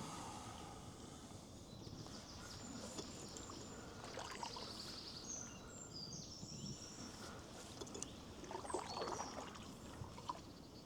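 Canoe paddle dipping into the river, quiet strokes with water splashing and dripping. A few short high chirps sound near the middle.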